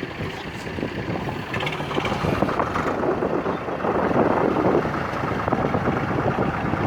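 Tractor diesel engine running, getting louder about two seconds in.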